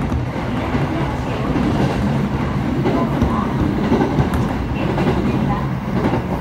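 Steady running noise of an electric commuter train heard from inside the passenger car: a rumble of wheels on the rails, with the train on the next track running alongside.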